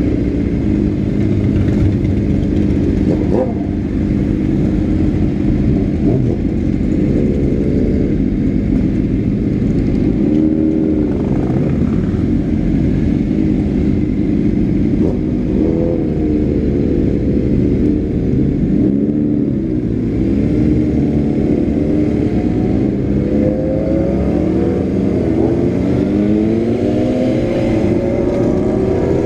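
Motorcycle engine heard from the rider's seat, a 2006 Honda CBR600RR inline-four, running at low road speed. Its revs dip and rise a few times, then climb steadily near the end as it pulls away.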